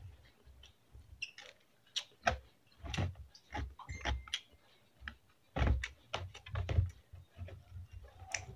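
A person eating close to the microphone: irregular chewing, lip smacks and mouth clicks while eating noodles and rice with bare hands.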